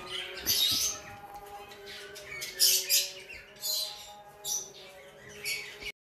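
Caged pet parrots chirping and squawking in about five short, high-pitched bursts.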